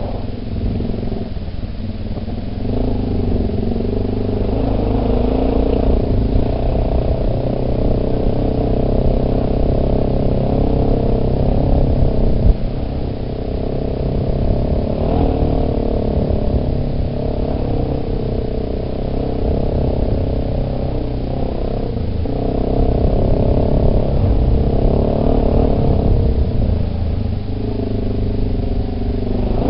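Yamaha Big Bear 400 ATV's single-cylinder four-stroke engine running steadily, its pitch rising and falling a little as the machine moves. There is one short clunk about twelve seconds in.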